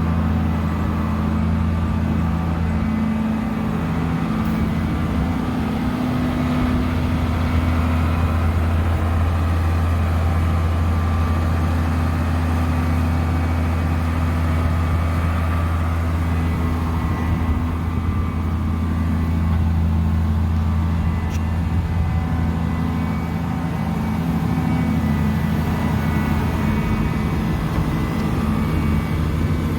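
Large engine of harvest machinery running steadily at constant speed, a deep even hum that holds without revving up or down.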